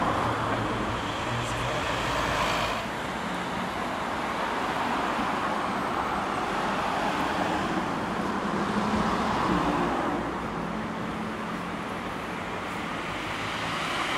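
City street traffic: cars driving past, a steady hum of engines and tyres that swells and eases as vehicles go by.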